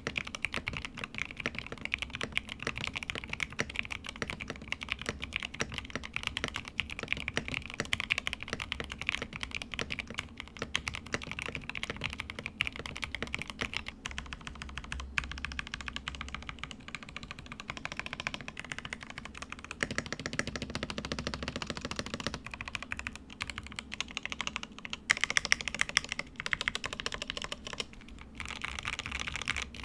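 Fast, continuous typing on a FancyTech Fancy81 gasket-mounted plastic 75% mechanical keyboard with lubed Gateron Pro Yellow linear switches, a tape-modded PCB and PBT cherry-profile keycaps, with a few short pauses.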